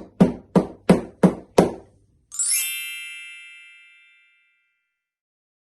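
Kitchen spatulas striking an empty cardboard box, five strokes about three a second in the box-drumming pattern. They are followed by a single bright bell-like ding that rings out and fades over about two seconds.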